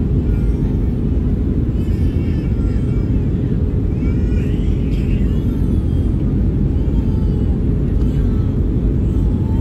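Airbus A319 cabin noise during descent: the steady, deep rumble of its CFM56 jet engines and the airflow, heard from a window seat.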